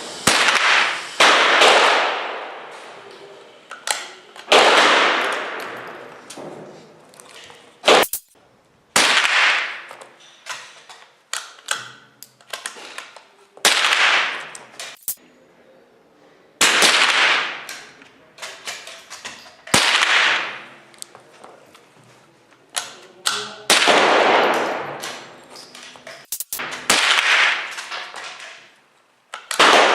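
A series of .22 LR rifle shots, a few seconds apart at uneven intervals, each followed by a long echoing tail. Fainter sharp cracks fall in between.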